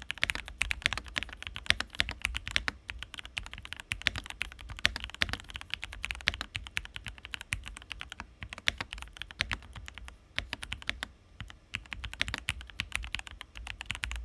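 Continuous fast typing on a Drop CSTM80 mechanical keyboard with Gateron KS-3 Milky Yellow Pro linear switches, ABS keycaps and a PC plate, a dense run of key strikes with a couple of short pauses. The keyboard is in stock form with its case foam in, and the typist finds the sound a tad muted, which he puts down to the foam.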